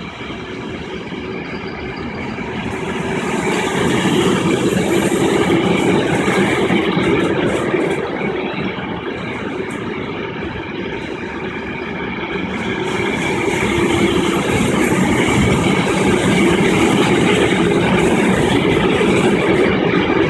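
Container freight train rolling past: a continuous rumble and clatter of wagon wheels on the rails, growing louder over the first few seconds, easing off a little around the middle, then swelling again.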